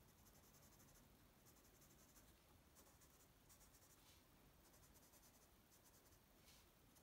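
Faint scratching of a colored pencil shading on paper, in several short runs of quick strokes with brief pauses between them.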